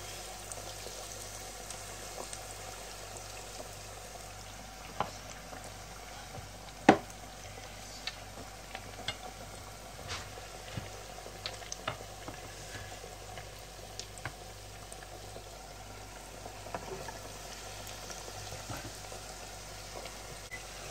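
Breaded chicken doughnuts deep-frying in the basket of an electric deep fryer: a steady sizzle of bubbling oil with scattered sharp pops, the loudest about seven seconds in.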